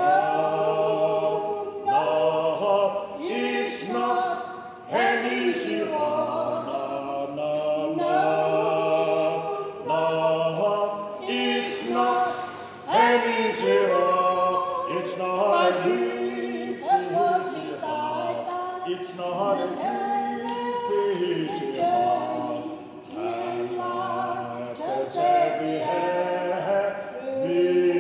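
A man and a woman singing a spiritual song together as an unaccompanied duet, with long held notes that slide between pitches.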